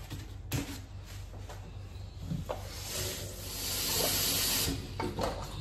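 Kitchen tap running water into a stainless steel pot in the sink to wash potatoes, the hiss of water swelling from about halfway and stopping suddenly near the end. A sharp knock about half a second in.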